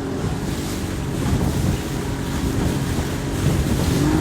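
Wind buffeting the microphone and water rushing past a small aluminium boat's hull, under the rumble of its 1985 Yamaha 50 hp two-stroke outboard running.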